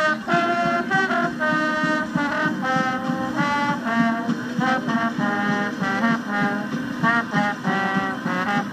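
Recording of a school band playing, brass to the fore with trumpets and trombones in short, repeated rhythmic notes, heard played back through a portable Sony boombox's speakers.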